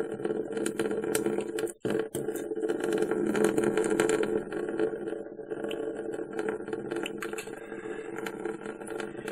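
Saline sinus rinse being squeezed through the nose, gurgling and dripping from the other nostril into a sink, with many small crackles and clicks over a steady low hum.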